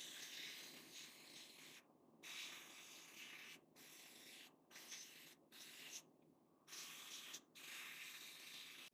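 Blast gun in a sandblasting cabinet hissing as abrasive strips old orange paint off a metal toy tractor part. The blasting stops briefly several times.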